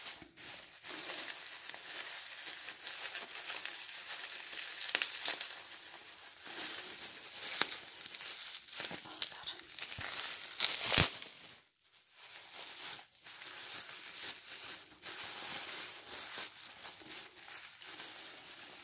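Plastic packaging, bubble wrap and a clear plastic bag, crinkling and rustling in the hands as a small plastic model horse is unwrapped, with sharp crackles throughout. It is loudest about seven and eleven seconds in and dips briefly just after.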